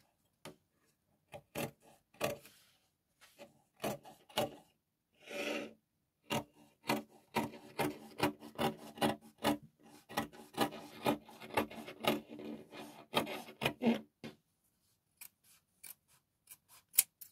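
Fabric scissors cutting through folded Ankara cotton, the blades closing in a string of crunchy snips. The snips are spaced out at first, come in a quick run from about six to fourteen seconds in, and end with a few scattered clicks.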